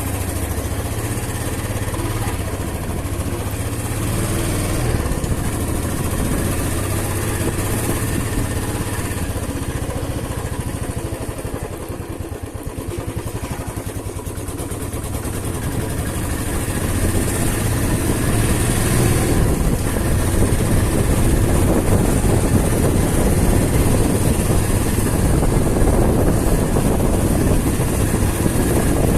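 Motorcycle engine running steadily as the bike is ridden, dipping a little about a third of the way in and then growing louder for the second half.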